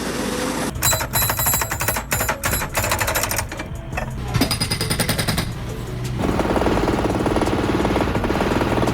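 Excavator-mounted hydraulic hammer (breaker) pounding in a rapid stream of blows, in stretches with short breaks about three and a half and five and a half seconds in, then hammering steadily to the end.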